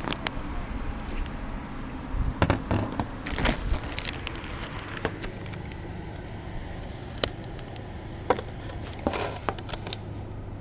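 Scattered clicks, knocks and scrapes of hands moving plastic and hose parts around a car's engine bay, over a steady low rumble.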